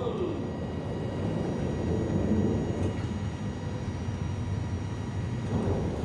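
Steady low rumble and rush of wind and sea aboard a tanker in heavy weather, with no distinct events.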